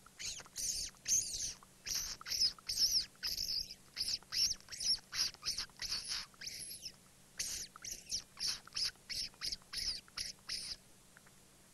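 A person making a run of short, high squeaking calls with the mouth, about three a second, to coax a genet out of a tree hole. The squeaks stop about a second before the end.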